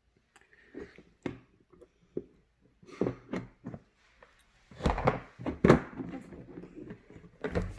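Scattered knocks and thuds with rustling handling noise, the loudest pair of thuds about five to six seconds in.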